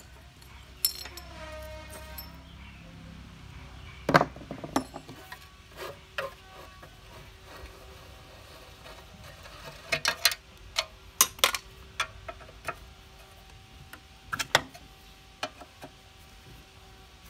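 Metal tools and rods clinking and knocking against a rusty Honda GX160 engine as it is taken apart. The strikes come scattered, with a sharp knock about four seconds in and a cluster of clinks around ten to twelve seconds in.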